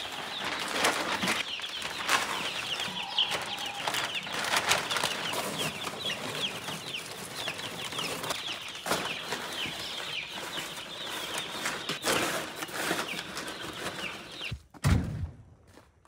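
A brooder full of young chicks peeping constantly, many short high falling peeps overlapping, with scattered knocks and rustles. Near the end, a single low thump.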